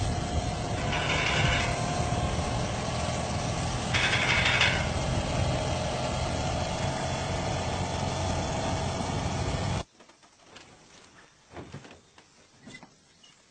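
Motorcycle engine running steadily at idle, with two short hisses about a second and four seconds in. It cuts off abruptly about ten seconds in, leaving only a few faint knocks.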